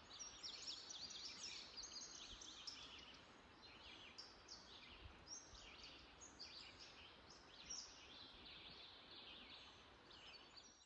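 Several songbirds singing and chirping at once, many overlapping quick whistled notes, faint over a soft outdoor hiss.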